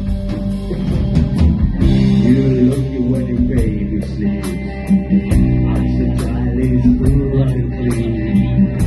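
Rock band playing live: electric guitar, bass guitar and drum kit, with cymbal strokes about twice a second. A man's singing voice comes in about two seconds in.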